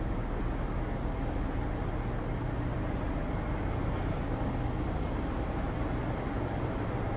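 Steady low rumble of a large ship's engines under a constant hiss, with no change in level.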